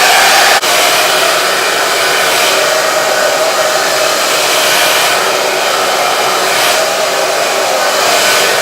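T3 Cura Luxe hair dryer running steadily, an even rush of air with a faint whine under it, dipping for an instant just after it starts.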